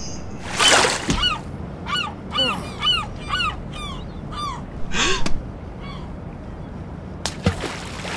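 Cartoon sound effects: a loud rushing noise, then a rapid run of about a dozen short calls, each rising then falling in pitch, followed by another rush of noise and a sharp burst near the end.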